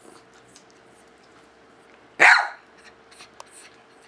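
A Bichon Frise barks once, a single sharp bark about two seconds in.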